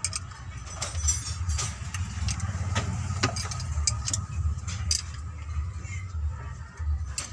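A low, uneven engine rumble runs throughout, with sharp, irregular metallic clicks and taps scattered through it from hands and tools working on the exposed rocker arms of the Canter diesel engine.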